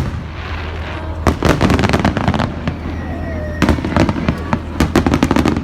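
Fireworks going off: two rapid clusters of sharp crackling pops, the first starting about a second in and the second in the latter half.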